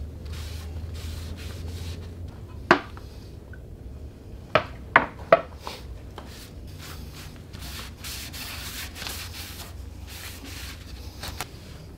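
A cloth rag rubbing and wiping over wooden boat frames in short repeated strokes, with a few sharp knocks around the middle that are the loudest sounds, over a low steady hum.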